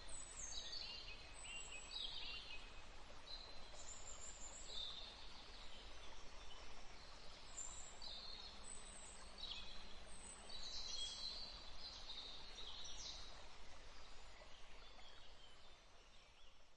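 Several small birds chirping and trilling in quick, repeated high notes over a steady background hiss.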